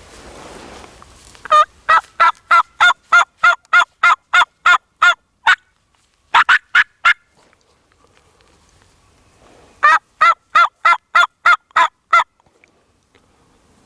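Hunter's turkey call yelping in hen-like runs: about a dozen notes at roughly three a second, three quick notes, then a second run of about nine, to coax a gobbling jake in.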